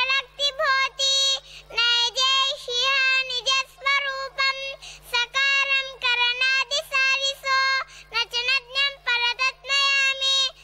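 A young girl's voice reciting into a microphone in a sing-song, chant-like delivery, with long held notes broken by short pauses.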